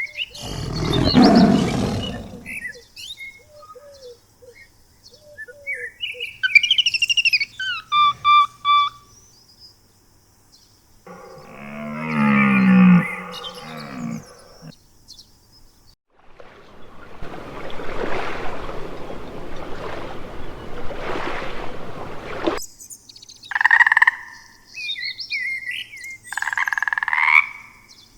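A string of different animal calls one after another with short gaps: a loud noisy call, a few short chirps, a pitched call with a rising and falling tone, a long noisy stretch that swells twice, then two short pitched calls near the end.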